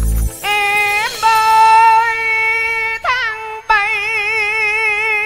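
A singer holding long, high notes through a microphone in Vietnamese cải lương style. The notes slide into pitch and are sustained, with a wavering vibrato in the later held note.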